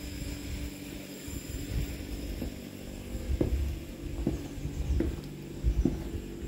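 Footsteps going down a narrow staircase, one sharp step roughly every second from about two and a half seconds in, over a low rumble and a faint steady hum.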